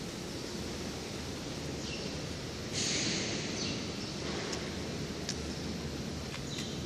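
Steady background noise of a large factory hall with a low hum. A short burst of hiss comes about three seconds in, and a few faint clicks follow as the recording phone is handled and turned around.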